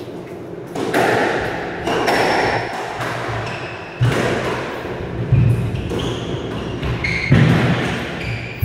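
Squash rally: the ball thudding off the walls and cracking off the rackets, a sharp hit every one to two seconds, with short high squeaks from the players' shoes on the wooden court floor.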